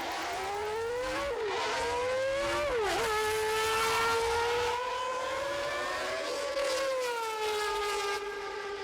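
Recreated engine sound of a 1989 McLaren Honda MP4/5 Formula One car, its V10 revving up through the gears: the pitch climbs and drops sharply twice as it shifts up, then holds high and falls slowly a few seconds later.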